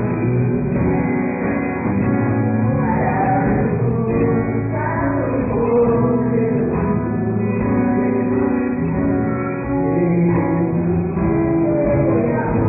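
Live band music with a singer: instruments and voice performing a song together at a steady, loud level.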